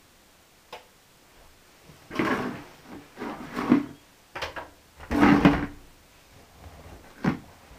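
A plastic bucket set down in front of a Hotpoint WM63 front-loading washing machine, then the machine's door latch released and the porthole door pulled open: a series of knocks and clunks, the loudest about five seconds in.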